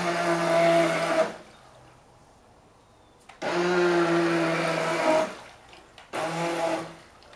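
Small electric motor of a radio-controlled toy boat whining at a steady pitch in three bursts of one to two seconds, stopping dead in between, as the boat is driven in spurts.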